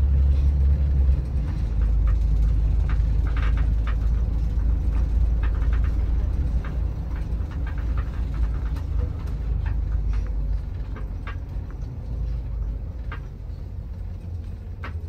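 Shuttle bus running, heard from inside the cabin: a steady low rumble with scattered light rattles and clicks. The rumble eases a little about a second in and fades somewhat toward the end.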